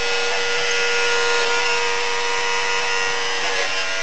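Electric hair clippers running with a steady buzz while shaving a woman's hair down to the scalp.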